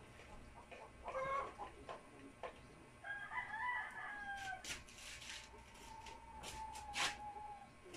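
Animal calls: a short call about a second in, then calls that slide in pitch, then one long, steady drawn-out call in the second half. A few sharp clicks fall in between.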